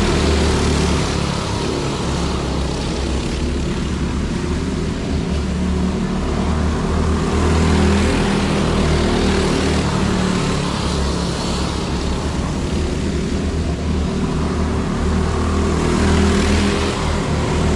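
Racing go-karts with small single-cylinder four-stroke engines running flat out around a dirt oval. The pack's engine note swells each time karts pass close by, about every eight seconds.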